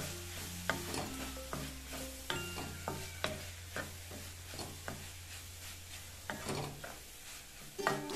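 Wooden spatula scraping and knocking against a metal kadai as a sauté of onion, carrot, peas, tomato and squid pieces is stirred, in irregular strokes about once or twice a second, with a light sizzle of frying.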